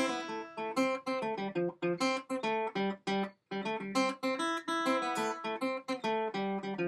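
Credits music: an acoustic guitar picking a quick run of plucked notes.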